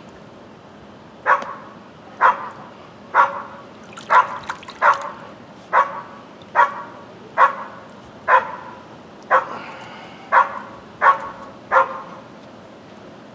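A dog barking repeatedly, about a dozen single barks at a steady pace of roughly one a second.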